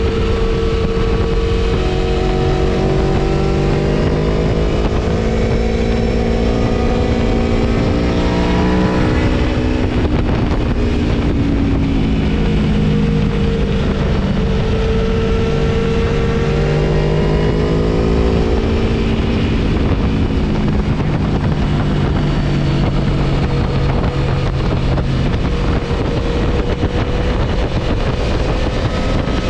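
Gabro Stage 3 tuned Aprilia Tuono V4 engine under way, its pitch climbing and dropping in repeated sweeps as the bike accelerates and backs off, then settling to a lower, steadier tone near the end. Steady wind rush on the microphone runs underneath.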